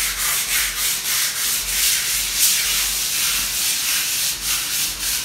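Sandpaper rubbed by hand over a painted wall in quick, even back-and-forth strokes, a rhythmic scratching hiss. It is sanding off old, flaking paint before the wall is primed.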